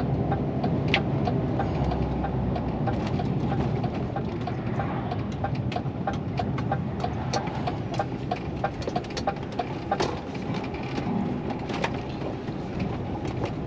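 Lorry's diesel engine and tyre noise, heard from inside the cab while driving, with a fast, regular light ticking for most of the time.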